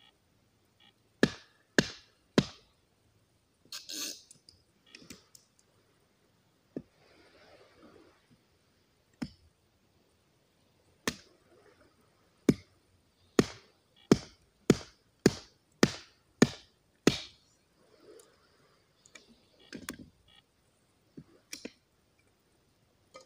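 Hatchet chopping wood on a driftwood log: three sharp blows about a second in, then a fast run of about nine blows at just under two a second, with softer handling of the wood between.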